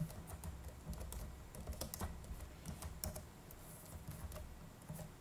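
Computer keyboard keystrokes: faint, quick, irregular taps as a line of text is typed, over a low steady hum.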